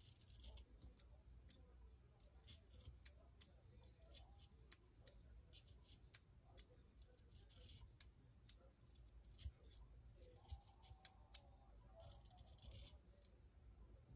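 Quiet scraping and clicking of an X-Acto hobby knife blade shaving the wooden casing of a Shu Uemura Hard Formula eyebrow pencil. Short scrapes come at irregular intervals amid scattered small ticks, with one longer scrape of about a second near the end.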